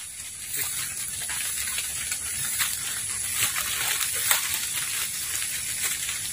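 Footsteps walking through grass and low undergrowth, with irregular soft rustles and knocks, over a steady high hiss.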